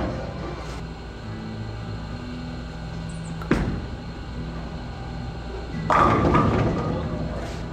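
A bowling ball is released and lands on the lane with a sharp thud about three and a half seconds in. It rolls down the lane with a low rumble, then crashes into the pins about six seconds in, a loud clatter that fades over a second or so.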